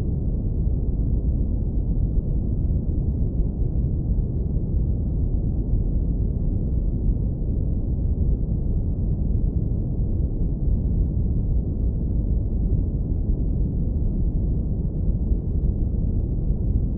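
Synthetic brown noise low-pass filtered to a deep, steady rumble, with almost nothing above a few hundred hertz.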